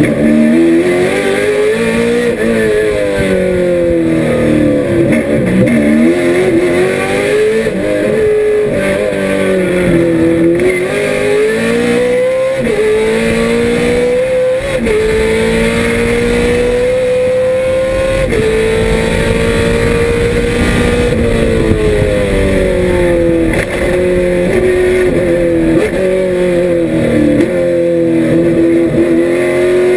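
1968 Trans-Am Camaro's 302 small-block V8 at full racing pace, heard from inside the cabin. The engine note climbs and dips through the corners, rises through two quick upshifts about halfway, and holds high along a straight. It then falls as the car slows and climbs again near the end.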